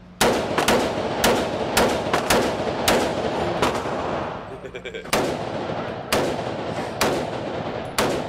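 A short-barreled rifle fired in single shots at an indoor range, each report echoing off the range walls. The shots come quickly through the first few seconds, then slow to about one a second.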